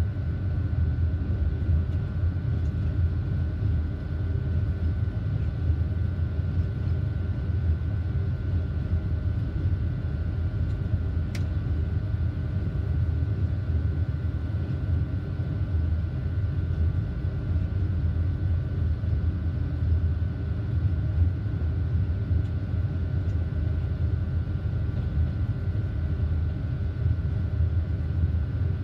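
BB 27000 electric locomotive running along the line, heard from its cab: a steady low rumble from the running gear with a thin, steady high whine over it. A single sharp click sounds about eleven seconds in.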